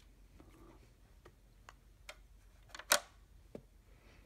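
Small plastic toy pieces being set down and clicked into place in a plastic toy house: a handful of short, sharp clicks and taps, with the loudest click about three seconds in.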